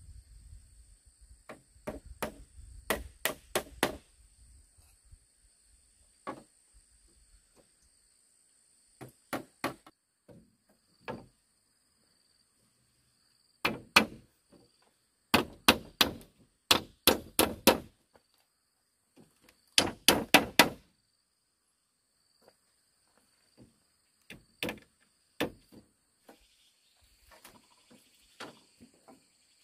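Bamboo being struck with a hand tool, in bursts of three to six quick, sharp blows with pauses between. A steady high-pitched drone of insects runs underneath.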